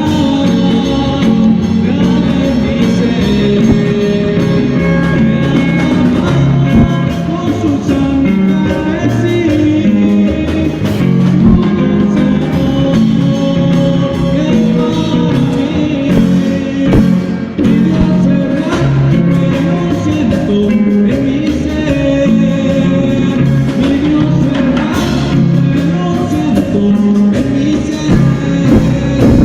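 A band playing a song live, with a singer over guitar.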